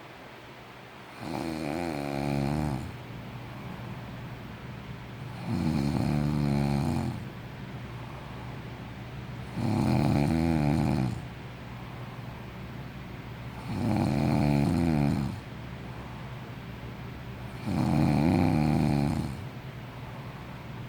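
A sleeping person snoring: five snores about four seconds apart, each lasting about a second and a half.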